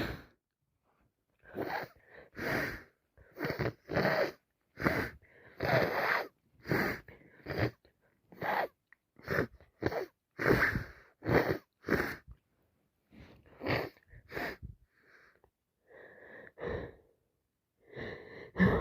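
A woman with a head cold turned to sinusitis breathing in short, noisy bursts through a congested nose, about twenty quick breaths and sniffs at one or two a second, some of them sneeze-like.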